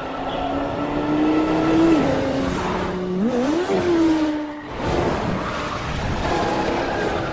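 Ducati Scrambler motorcycle engine racing through traffic, its pitch climbing and dropping, with a sharp rise about three seconds in, and cars rushing past.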